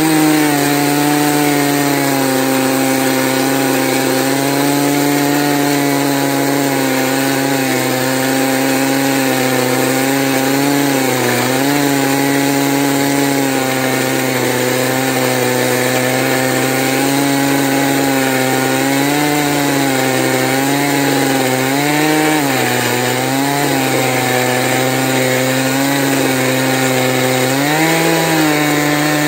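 Stihl MS 880 two-stroke chainsaw on an Alaskan chainsaw mill, running at full throttle as it rips a spalted beech log into slabs. The engine note holds steady and sags briefly a few times under load.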